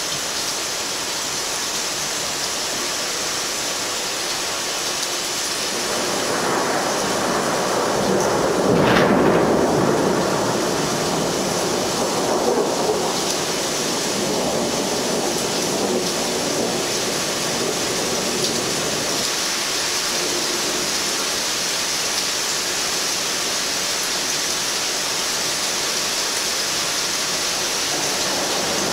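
Steady rain hiss, with a long roll of thunder that swells about six seconds in, is loudest a few seconds later, and rumbles on for about ten seconds before fading back under the rain.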